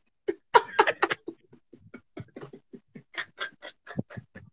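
Men laughing in short, broken bursts, several a second, after a punchline.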